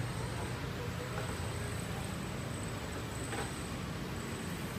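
Steady background rumble and hiss with no distinct event, apart from a faint tick about three seconds in.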